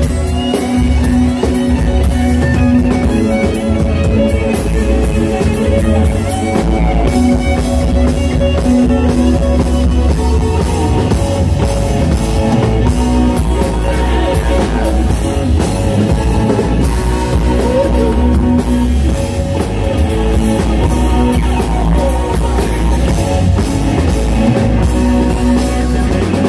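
Live rock band playing amplified music: drum kit, electric guitar and keyboard together in a continuous song.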